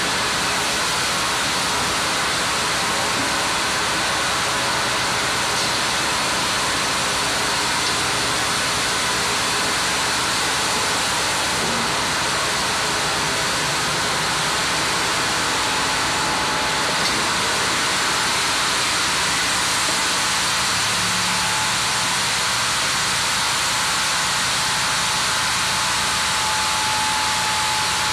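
Sawmill headrig band saw and its machinery running with a loud, even rushing noise. A thin steady whine joins in the second half.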